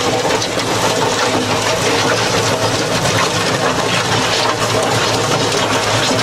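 Yanmar tractor running steadily under load, driving a rotary trenching cutter through stony soil. Dirt and broken rock pour out of the discharge chute in a continuous rush.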